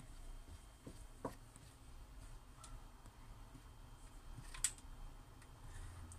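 Black plastic kitchen tongs clicking lightly against a plate now and then as a whiting is turned in flour, a few faint ticks with the sharpest one late on.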